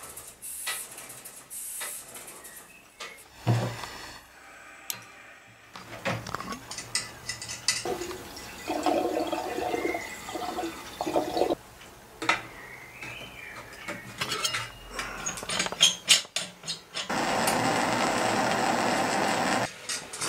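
Home-built OO gauge live steam locomotive being steamed up: small metal clinks and knocks, with hissing and water-like gurgling. A loud steady hiss lasts about three seconds near the end.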